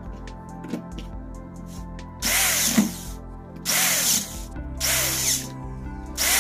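Cordless drill/driver driving the screws of a 12 V sprayer pump head, run in short bursts of about half a second each, three full runs and a fourth starting at the very end, fastening the head back together. Small handling clicks come before the first run.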